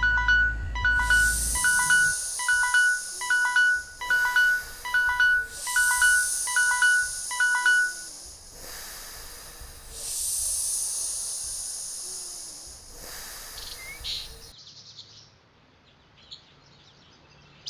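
Electronic alarm beeping in a quick repeating pattern, about two beeps a second, for the first eight seconds, over swells of hiss in the background music. The beeping stops and the track fades away later on.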